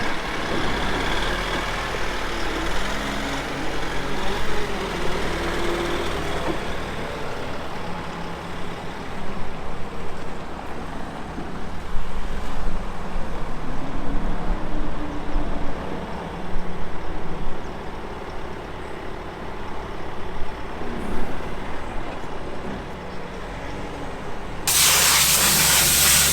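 A farm vehicle's engine running, its revs rising and falling. Near the end a loud, steady hiss cuts in suddenly: compressed air blowing dust off machinery.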